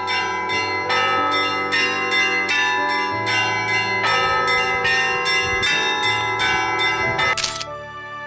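Bells of an Orthodox church tower ringing a rhythmic peal, several bells struck about two to three times a second. Near the end the ringing stops with a sharp click, and soft background music follows.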